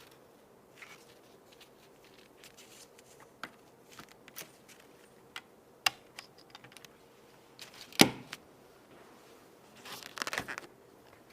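Product packaging being handled and opened: scattered light clicks and taps, a sharp knock about eight seconds in, and a short burst of crinkling and tearing near the end.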